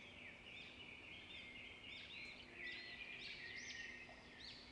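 Faint chirping of small birds: a quick run of short chirps, busier in the second half.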